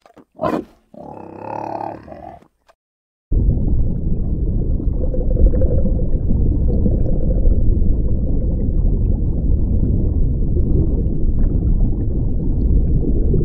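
Warthog grunts and a short pitched squeal, then, about three seconds in, a loud, steady low rumble takes over.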